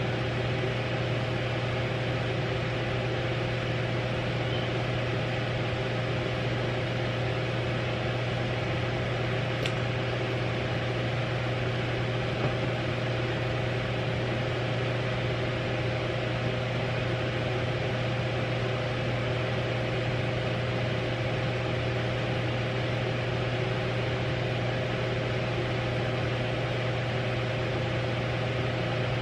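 Steady machine hum with an even hiss behind it; a single faint click about ten seconds in.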